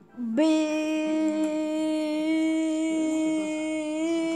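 A single long held note, steady in pitch, stepping up slightly near the end.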